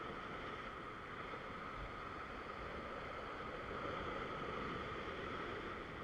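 Ocean surf breaking and washing against a rock ledge, mixed with wind on the microphone: a steady rushing noise that swells a little past the middle.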